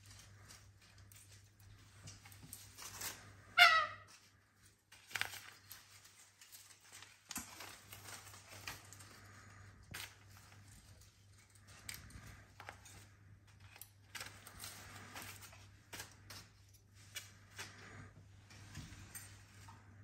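Pet cockatoos playing on a rope-and-branch stand: scattered rustling, small clicks and chewing sounds, with one short, loud squawk about three and a half seconds in.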